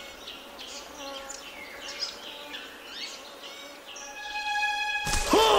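Cartoon forest ambience: birds chirping in many short quick chirps over soft background music. About four seconds in, a steady held note comes in, and near the end a loud burst of falling, swooping whistle-like sound effects cuts in.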